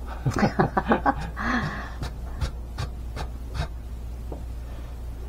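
Purple jayeong potato being julienned on a plastic mandoline slicer over a steel bowl: a few quick scraping strokes across the blade, roughly three a second, after a brief breathy voice near the start.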